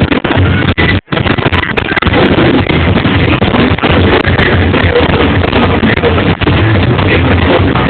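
Fireworks-show music played very loud and distorted, with firework bangs mixed in; the sound cuts out briefly about a second in.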